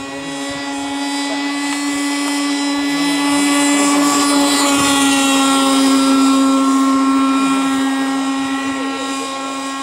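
Webra 40 two-stroke glow engine of a model power boat running flat out with a steady, even note. It grows louder as the boat passes close about midway through and fades as it runs away.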